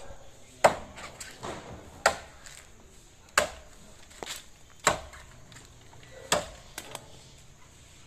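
Axe chopping into a coconut palm trunk: five hard blows, about one every one and a half seconds, with lighter knocks between them.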